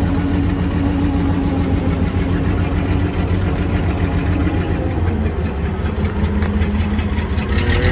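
Truck engine running steadily under way, with a tone rising in pitch near the end.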